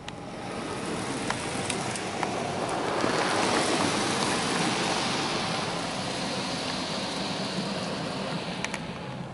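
Water jets from the Belanger Kondor KL1 touchless car wash's overhead arm spraying the car's roof and glass, heard from inside the car: a steady hiss of water that builds over the first few seconds and eases slightly near the end, with a few light ticks.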